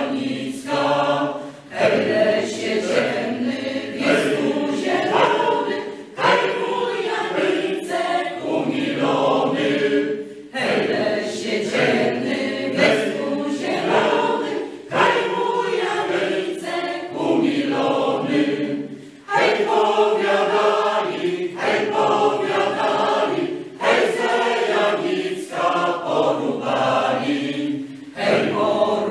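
Mixed choir singing a Polish folk song unaccompanied, in phrases broken by short breaks for breath.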